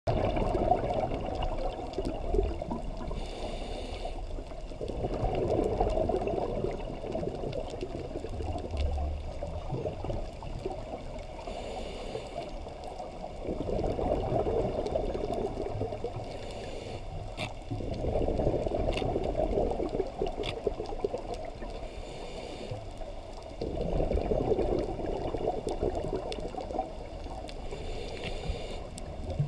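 Scuba diver breathing underwater through a regulator: a short hiss of inhaled air, then a longer gurgling rush of exhaled bubbles, repeating about every five to six seconds. A few faint clicks sound in between.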